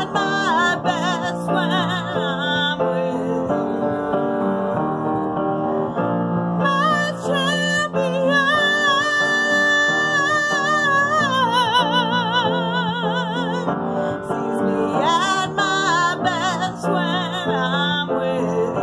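A woman singing a song with strong vibrato over an instrumental accompaniment, holding long notes in the middle of the passage.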